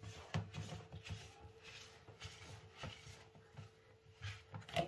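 String hopper flour and water being mixed into dough in a plastic bowl with a wooden spoon: soft, irregular scraping and squishing, over a faint steady hum.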